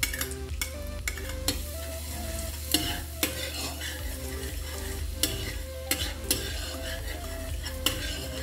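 Crushed garlic sizzling in butter and oil in a metal wok, stirred with a spatula that scrapes and clicks irregularly against the pan.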